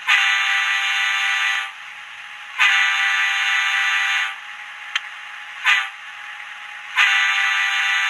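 Digitrax SDH166d sound decoder's diesel horn in a model Bachmann F3A, played through the model's small speaker. It sounds two long blasts, a short toot, then a third long blast. The sound is thin and tinny, with no bass.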